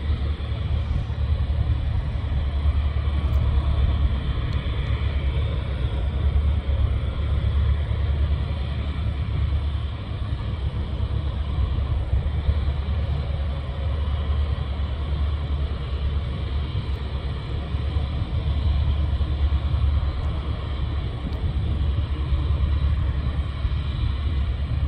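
Steady, heavy low rumble throughout, with a faint higher hum over the first several seconds that fades away.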